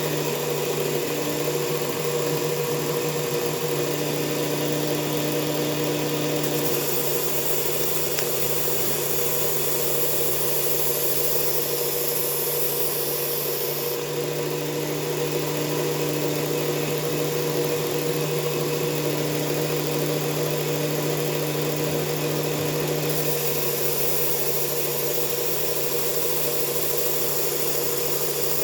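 Belt sander running steadily with a coarse abrasive belt while a knife blade is passed across it to grind the edge bevel, a steady motor hum under a grinding hiss that strengthens for long stretches.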